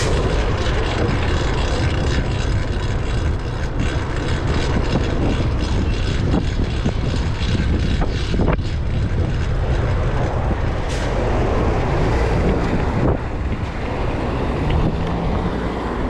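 Steady wind rush and road rumble on a bike-mounted camera while riding a fixed-gear bicycle in traffic, with a few brief clicks and rattles.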